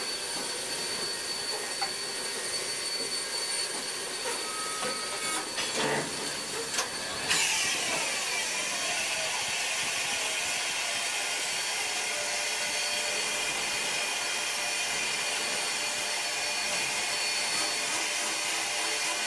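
Steam locomotive hissing steadily as it vents steam. The hiss turns suddenly louder and brighter about seven seconds in.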